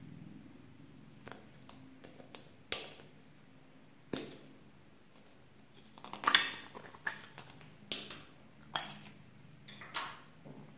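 Small plastic slime container clicking and snapping as fingers handle and open it, a string of sharp clicks with the loudest about six seconds in.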